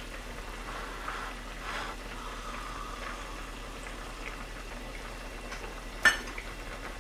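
Tuna kimchi stew bubbling at a steady boil in an earthenware ttukbaegi pot. A single sharp clink, like a spoon set down, about six seconds in.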